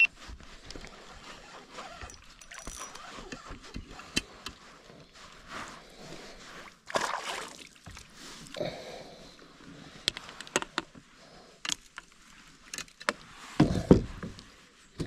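Handling noises aboard a plastic fishing kayak: scattered clicks and knocks of rod, reel and tackle against the hull. Heavy thumps come near the end as a caught fish is swung aboard on the line.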